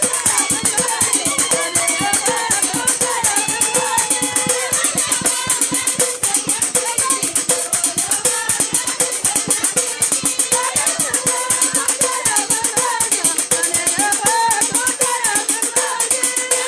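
Traditional folk song sung by women's voices over a fast, steady beat of bright, rattling percussion.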